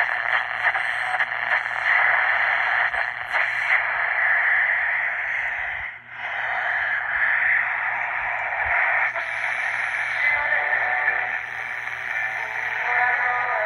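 Zenith Royal 20 transistor radio playing broadcast audio through its small speaker, a thin, narrow-band sound with hiss. It drops out briefly about six seconds in.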